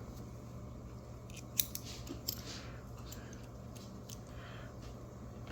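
Scattered small metal clicks and short scrapes of a screwdriver bit being fitted and worked against stubborn, Loctited screws in a lock body, over a steady low hum.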